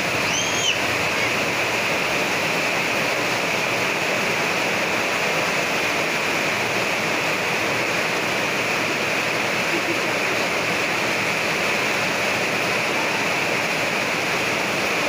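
Heavy tropical downpour: a dense, steady hiss of rain. Near the start a child gives one brief high squeal.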